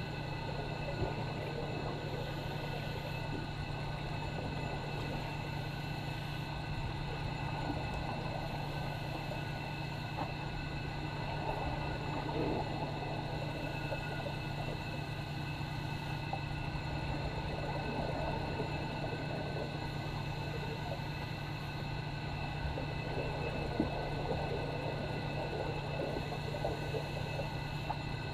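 Steady underwater hum of swimming-pool machinery heard through the water: a constant low hum with several steady high tones over it, and faint irregular crackling.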